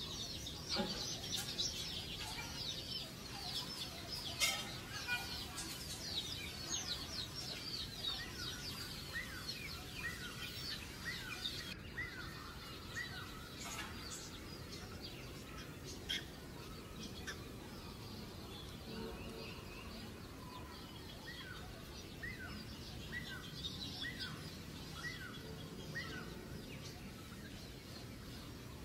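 Many short, high-pitched chirping calls, each note falling in pitch, thick in the first half and then coming in runs of evenly spaced falling squeaks, over a steady low background hum.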